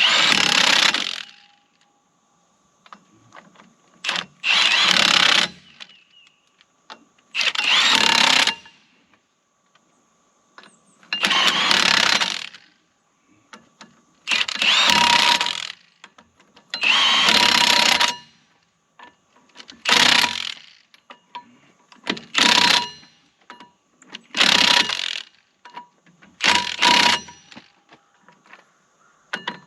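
Impact wrench run in about ten short bursts, roughly one every three seconds, driving the bolts of a new drive sprocket onto a skid steer's final drive.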